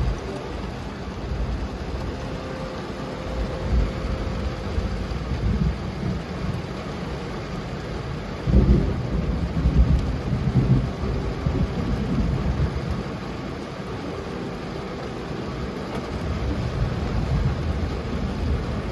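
Heavy rain hitting a car's roof and windows, heard from inside the closed car. About halfway through, a low rumble of thunder swells and fades over a few seconds.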